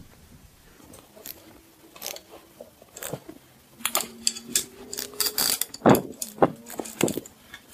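Torque wrench ratcheting as the intake manifold bolts are tightened: a run of sharp metallic clicks, sparse at first, then louder and more frequent from about four seconds in.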